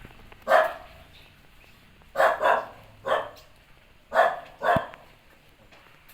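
A dog barking: six short barks, some coming in quick pairs.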